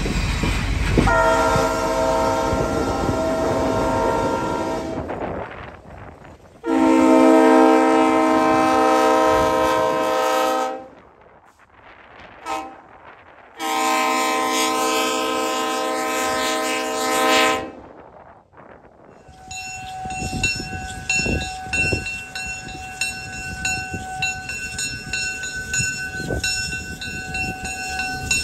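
Illinois Terminal 1605 diesel locomotive's horn sounding the grade-crossing signal: two long blasts, one short and one long, over the running engine. After the last blast a bell rings steadily.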